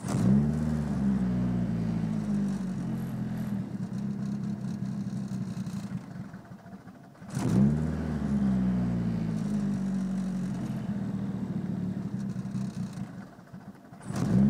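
Car engine rising sharply in speed, running steadily for about six seconds, then dropping away; this happens again about seven seconds in, and a third rise begins at the very end. The engine seems to be misfiring since a new intake manifold was installed, with a random-misfire code stored.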